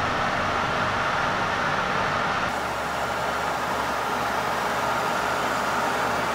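Horizontal milling machine running a helical roughing slab mill at 115 RPM, fed at 3 inches a minute through cast iron: a steady machine hum with the cutter's sound in the cut. The tone shifts slightly about two and a half seconds in.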